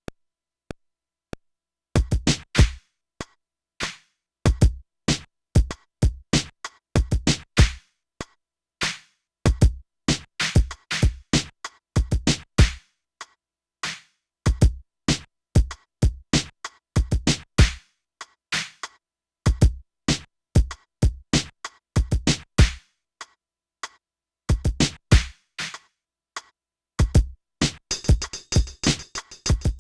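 Drum machine beat played on an Akai MPC: a few lone clicks, then about two seconds in a looping pattern of kick drum and percussive hits starts, the heavy kicks coming round about every two and a half seconds. Near the end a high hissing cymbal-like layer joins the loop.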